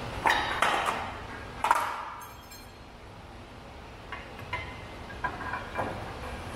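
Metal clanks and clinks of parts and tools being handled: three sharp knocks with a brief ring in the first two seconds, then several lighter clicks.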